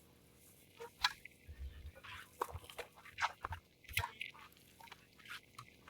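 Scattered sharp knocks and scuffs on a tennis court: tennis ball strikes and bounces mixed with shoe scuffs, the loudest knock about a second in.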